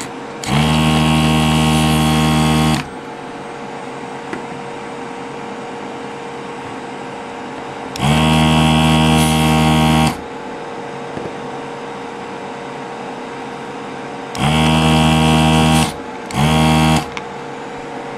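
Duratool ZD915 desoldering station's vacuum pump running in four bursts as the desoldering gun sucks molten solder from the board's joints: two of about two seconds, one of about a second and a half, and a short one near the end. A steady hum runs underneath.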